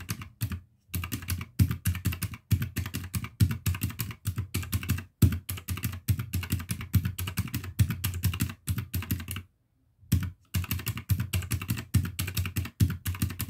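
Rapid clicking of the round, typewriter-style keys of a desktop calculator as a string of figures is keyed in to add up a total, with one short pause about two-thirds of the way through.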